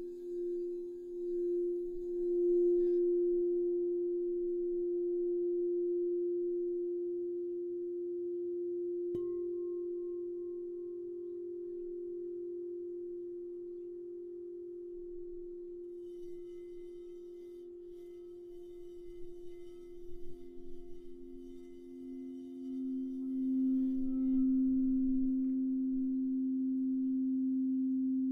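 Two quartz crystal singing bowls ringing together in long, steady tones at two pitches about a third apart. One is struck about nine seconds in, a brighter, higher ringing joins for several seconds past the middle, and the lower bowl swells louder near the end.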